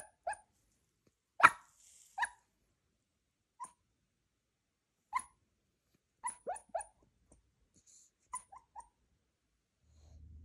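Cairn Terrier puppy yipping and whimpering in its sleep while dreaming: about a dozen short yips, some alone and some in quick runs of two or three, the loudest about a second and a half in.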